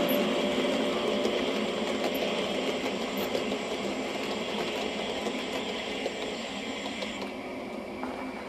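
LGB garden-scale model of a Rhaetian Railway electric locomotive and coaches running on the track: a steady whir of the motor and gearing with the wheels running on the rails, fading as the train moves away.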